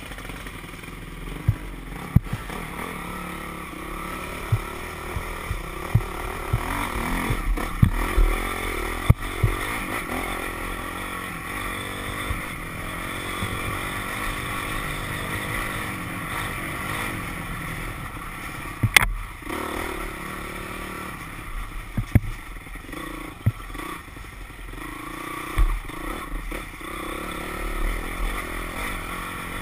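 Dirt bike engine running steadily on a rough trail ride, picked up by a camera on the rider. Sharp knocks and clatter from bumps come every few seconds, the loudest a little past halfway.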